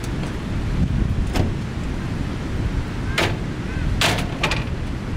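A few sharp clunks and knocks from a minivan's fold-out side-door ramp as it is lowered and set down on the pavement, the loudest about four seconds in. A steady low rumble of wind on the microphone runs underneath.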